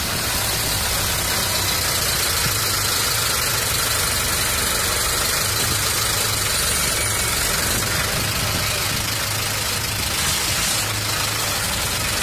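Truck engine running steadily, heard from the open cargo bed where the passengers ride, with a constant low hum and road noise.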